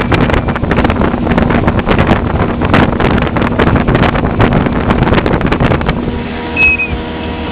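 Motorboat underway: engine running under heavy wind buffeting on the microphone, with many knocks through it. Near the end the wind eases, the motor's steady hum comes through, and there is one short high squeak.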